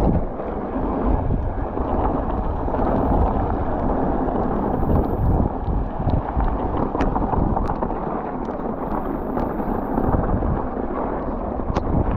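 Wind buffeting the microphone while riding a mountain bike down a trail, over a rumble of tyres on the ground, with a few sharp clicks and rattles.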